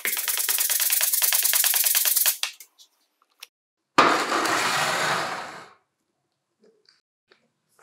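Stiff nylon brush scrubbing the wet plastic housing of a cordless angle grinder in soapy water, fast rhythmic strokes that stop after about two seconds. After a pause, a sudden rushing noise starts and fades out over about a second and a half.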